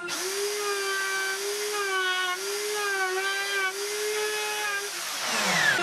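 Handheld electric router running with a steady high whine as it cuts a small 45-degree chamfer into the top of a wooden table leg. Near the end it is switched off and its pitch falls as the motor spins down.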